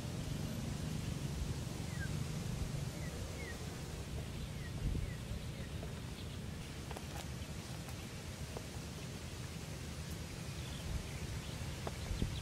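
Outdoor ambience: a steady low wind rumble on the microphone, with a handful of faint bird chirps in the first half and a few light rustles and clicks.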